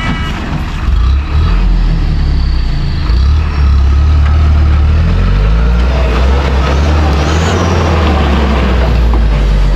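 Diesel tipper truck's engine running loud as the truck pulls away up a slippery dirt track; the engine rumble steps up about a second in and holds steady.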